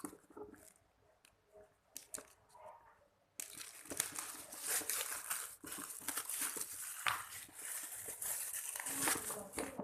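Packaging crinkling and rustling as it is handled: a few scattered clicks and rustles at first, then dense, continuous crinkling from about a third of the way in.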